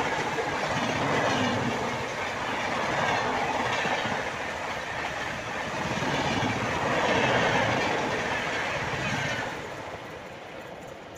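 Passenger train coaches passing at speed without stopping, a steady rush of wheel-on-rail noise with slow swells as each coach goes by. It fades near the end as the last coach moves away.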